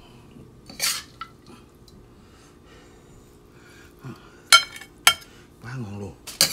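Stainless steel tongs clinking against a ceramic plate as fried squid is served out. There are a few sharp clinks, the loudest one ringing briefly about four and a half seconds in.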